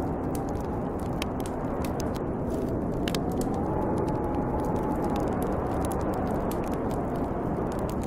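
Snowstorm wind blowing steadily, with a faint whistle that slowly rises and falls, over scattered pops and crackles of a wood fire.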